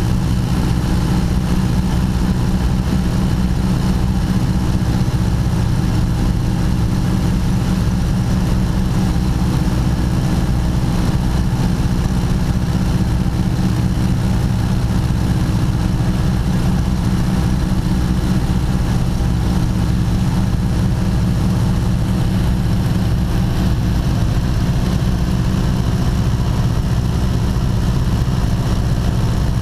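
1929 Ford Tri-Motor's three radial engines running steadily in level flight, a loud, even drone heard from inside the cockpit.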